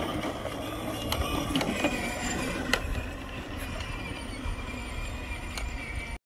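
Peg Perego John Deere ride-on toy tractor running across grass on its electric motor and plastic gearbox, with a few sharp clicks. It cuts off abruptly near the end.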